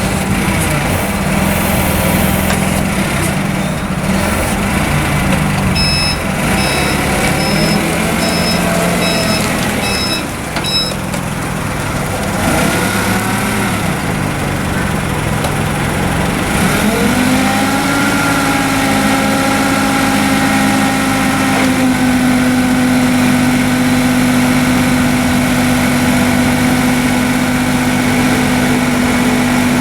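Propane-fuelled engine of a Cat C6000 forklift running steadily. About a third of the way in, a backup alarm sounds about seven short beeps. Just past halfway the engine speeds up and holds at a higher, steady pitch.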